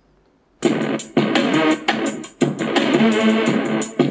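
A song playing loud through a small Advance CLS-102 USB gaming speaker turned up to full volume, starting abruptly a little over half a second in. The speaker is overdriven: the sound is distorted ("pecah") with a faint crackle, and it has almost no deep bass.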